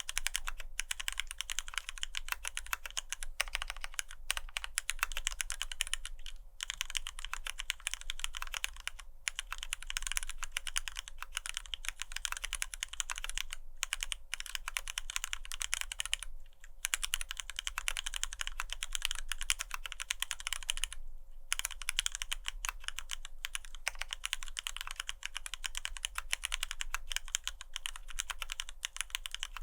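Fast, continuous typing on a gasket-mounted custom mechanical keyboard (F1-8X, aluminium plate) with Krytox-lubed Cherry retooled black linear switches and PBT keycaps, with a few short pauses. The switches are lubed to keep their top-out clack on key release.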